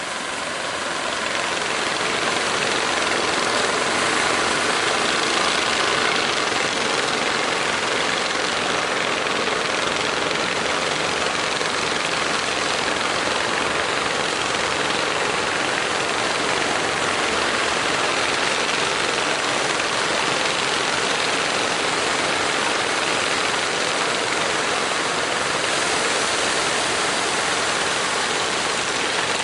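Steady, unbroken drone of many fishing-boat engines idling together.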